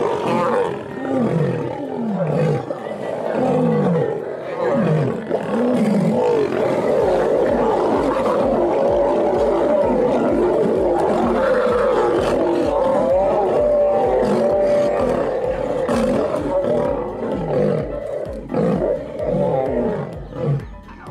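Lions roaring in a fight, a pack of lionesses against a male lion, with several animals calling at once. The calls come as many short roars that rise and fall in pitch, overlapping most densely in the middle.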